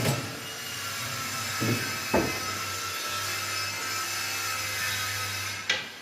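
Woodworking power tool running steadily with a faint whine, and three sharp knocks of wood during the run.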